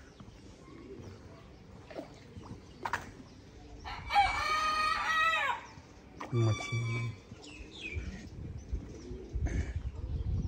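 A rooster crows once, about four seconds in, with a call lasting roughly a second and a half. A shorter call follows soon after.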